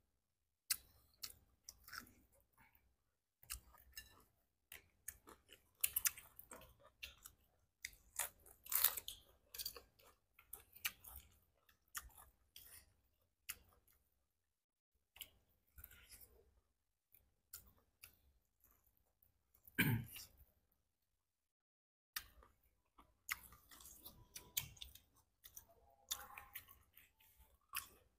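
Close-up chewing and crunching of mala-spiced shrimp and corn on the cob: many short bites and clicks in clusters with brief silent gaps, and one louder, longer sound about twenty seconds in.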